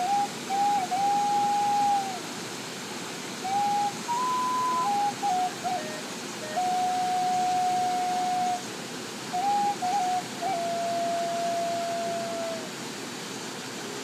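Native American flute tuned in G# playing a slow melody in phrases of long held notes with short ornamental notes between them and pauses between phrases; the last long note sags slightly in pitch at its end. A steady rush of the waterfall runs underneath.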